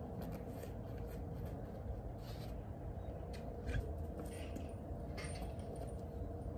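Hook-and-loop straps on a pony's travel boots being pulled open and fastened: short, irregular scratchy rips and rustles over a low steady rumble.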